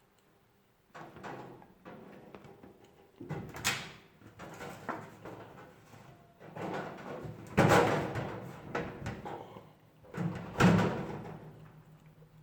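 Irregular knocks, scrapes and clatter of an electric oven's parts being handled and fitted back together during reassembly, with the loudest knocks about 4, 8 and 11 seconds in.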